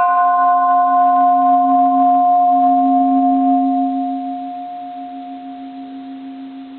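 1930s bronze Japanese Buddhist temple bell ringing out after one light strike, its low hum and a clearer overtone sustained together while the higher overtones die away within the first second or two. From about four seconds in the ring slowly fades, the low hum wavering as it dies.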